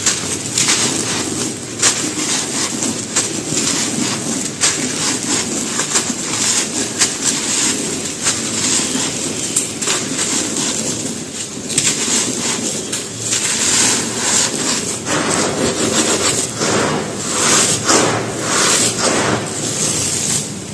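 Dry mud brick crumbling and crunching apart, a dense run of small gritty crackles and snaps.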